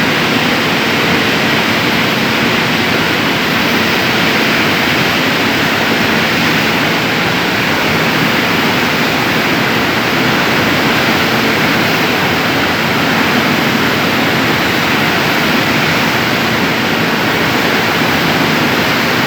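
Steady industrial roar from a steel hot strip mill's reheating furnace area. It is a loud, even rush of noise with a faint low hum, unchanging throughout.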